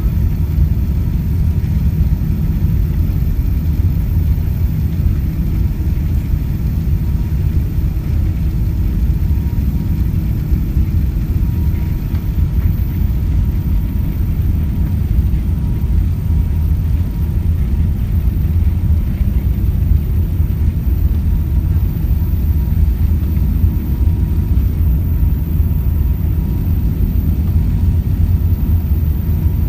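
Airbus A380 airliner running with a steady, deep rumble that holds an even level, with a faint steady tone above it.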